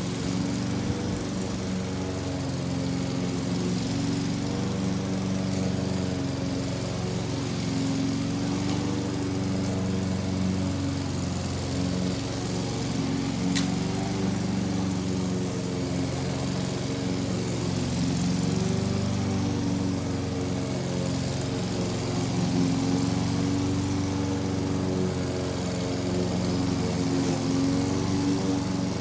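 Gasoline walk-behind push mower running steadily while cutting grass, its engine note wavering slightly. One sharp click about halfway through.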